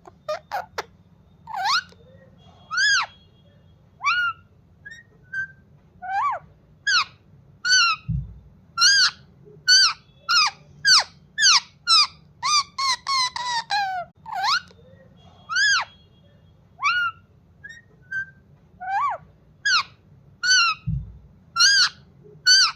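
Pet green parrot calling: a rapid string of short, shrill whistled chirps and squawks, each sliding up or down in pitch, several a second with short pauses between runs.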